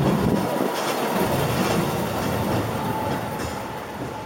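Hong Kong Peak Tram funicular car running on its rails as it passes close by, loudest as it goes past and fading steadily as it moves away along the track.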